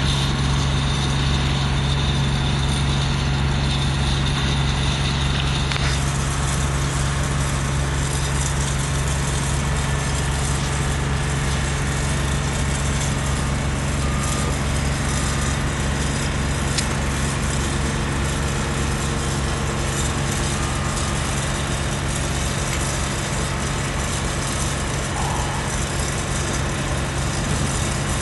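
Engine of a Haulotte H21TX 4x4 boom lift running steadily, a constant low hum, as the boom is operated.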